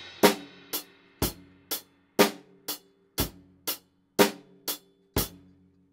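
Acoustic drum kit played in a slow, even pattern of about two strokes a second, with a deeper hit every two seconds. The drums ring on between hits, and after the last stroke near the end the ringing dies away.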